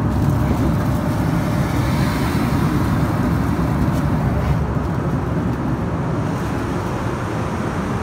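Steady, loud drone of an airliner cabin in flight: engine and airflow noise, deep and even throughout.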